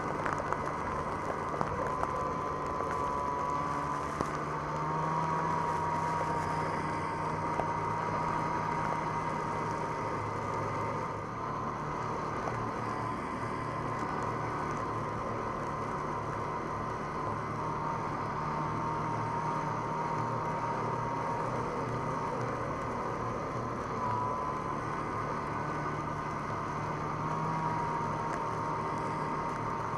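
Snowmobile engine running steadily while towing a snowboarder on a rope, a steady high whine over the lower engine note.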